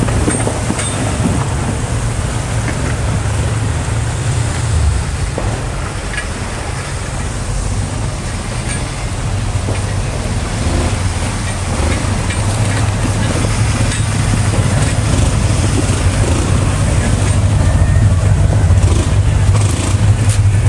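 Off-road Jeep Wrangler's engine running steadily at low revs on the trail, growing somewhat louder over the last several seconds.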